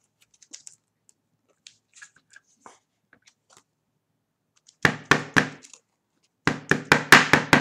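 Faint rustling of plastic card sleeves being handled, then sharp taps and knocks: a few about five seconds in and a quick run of about seven near the end.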